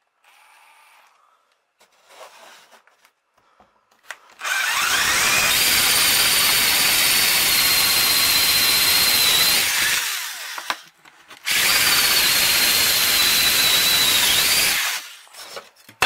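Power drill driving a hole saw through a wooden board, after a few faint knocks: two long cuts, the first about six seconds and the second about three, each with a steady high motor whine over the rasp of the teeth in the wood.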